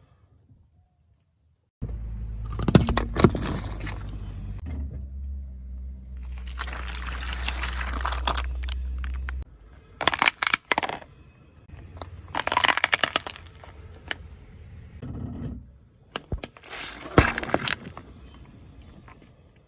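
Things crunching and cracking under a car tyre, in about five separate bouts of crackling. A low steady hum runs through the first half and cuts off suddenly.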